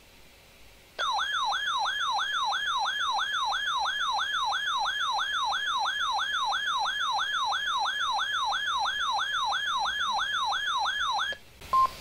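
A NOAA weather radio's alert siren going off for a Severe Thunderstorm Warning: a loud electronic warble sweeping down and up about three times a second for some ten seconds, starting about a second in and cutting off just before the end, followed by a short beep.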